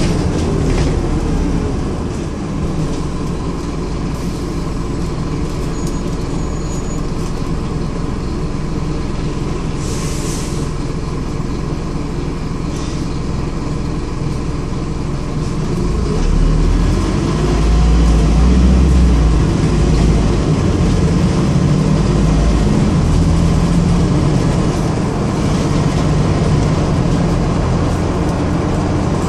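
Scania N230UD double-decker bus, with its five-cylinder diesel, heard from the upper deck while under way: a continuous engine and driveline drone mixed with road rumble and interior rattles. The engine note falls at the start as the bus slows, then rises again about halfway as it pulls away, with a deeper, louder rumble for a few seconds after. A short hiss comes about ten seconds in.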